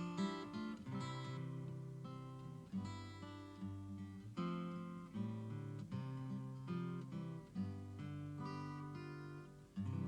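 Acoustic guitar playing the closing instrumental bars of a song after the last sung line, chords picked out in a run of separate ringing notes.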